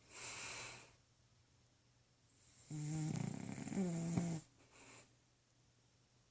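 Snoring in sleep: a breathy hiss of breath, then about three seconds in a longer buzzing snore lasting about a second and a half, with a faint breath after it.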